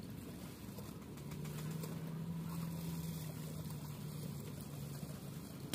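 A small engine running steadily with a low, even hum that settles to one pitch a little over a second in.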